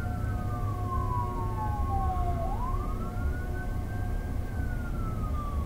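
A siren wailing in slow sweeps: its pitch falls for about two seconds, climbs back, then starts falling again near the end, over a steady low rumble.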